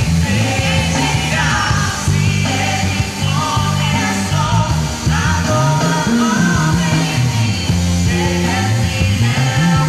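Live gospel band music: a heavy, pulsing bass line under rock-style accompaniment, with singing.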